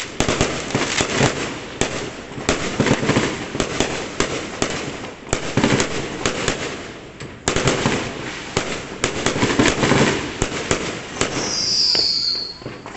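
Fireworks going off: a dense run of sharp bangs and crackling, with a brief high falling whistle near the end.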